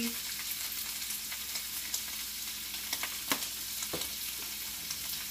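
Ground taco meat frying in a skillet, an even sizzling hiss, with a few sharp clicks about three to four seconds in.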